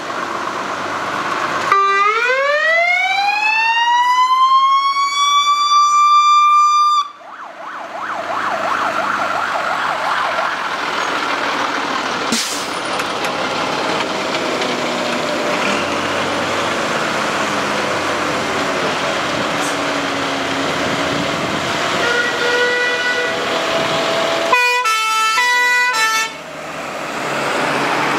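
Fire engine sirens from a 1994 Renault and a Volvo FL6 appliance. A siren rises in pitch over about five seconds, holds, and cuts off suddenly. After that come the trucks' diesel engines pulling away, and near the end a siren switching quickly back and forth between tones as an appliance drives close past.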